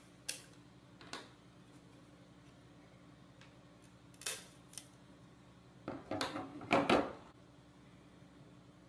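Sharp snapping clicks as motor mounts are broken out of a robot car's circuit-board chassis along their perforations, four of them spread over the first five seconds. A louder cluster of knocks follows about six to seven seconds in as the board and the loose mounts are set down on the table.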